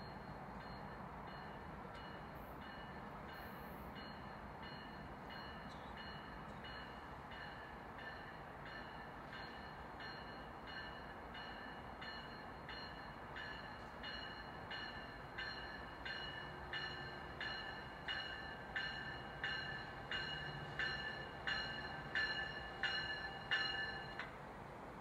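A railroad bell ringing steadily, about three strikes every two seconds, growing louder over the last several seconds and stopping abruptly near the end, over a low steady train rumble.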